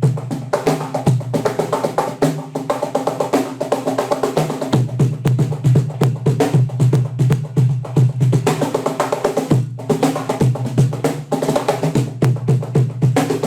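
Clapbox CB11 cajon played by hand in a fast, continuous groove: a dense run of strikes mixing deep bass hits with sharper slaps.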